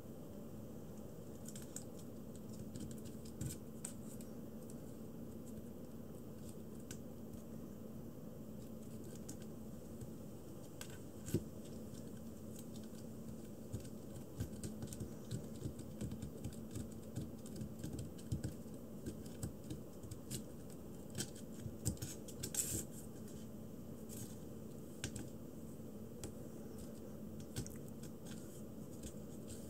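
A kitten's claws and teeth scratching and catching on a corrugated cardboard scratcher: irregular scratchy clicks and ticks, busiest in the middle, with one sharper knock about a third of the way in. A steady low hum runs underneath.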